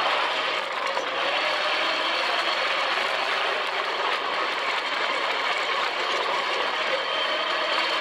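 Sand rail driving across dunes: its engine running steadily under continuous mechanical rattling.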